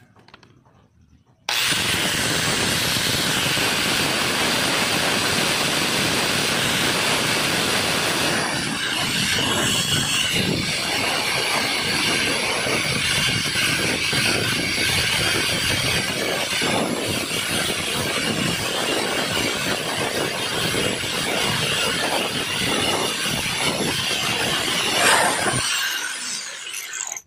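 Electric angle grinder with a felt buffing wheel switched on about a second and a half in and running steadily, buffing a stainless-steel lure piece to a shine; the sound turns rougher from about eight seconds in as the metal is held to the wheel. Near the end it is switched off and winds down with a falling whine.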